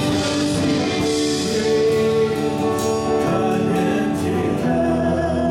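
Live worship band playing a song with a man and a woman singing, backed by electric and acoustic guitars, keyboard and drums.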